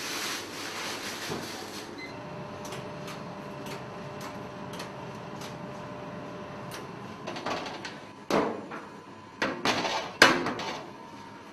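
Steady hum of bakery machinery with faint light ticking, then several sharp metal knocks and clatters at a multi-deck bakery oven as a tart is loaded in, the loudest about eight and ten seconds in.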